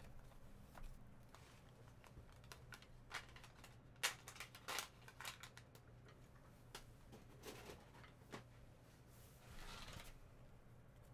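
Faint scattered clicks and light handling noises over a low steady hum. A few sharper clicks come about four to five seconds in, and a brief soft rustle comes near the end.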